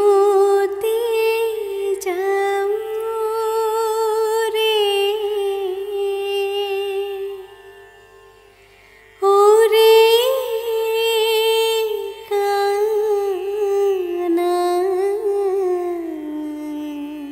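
A woman singing an Assamese lullaby (nisukoni geet) in long, held, ornamented phrases. She breaks off for about two seconds midway, then sings on.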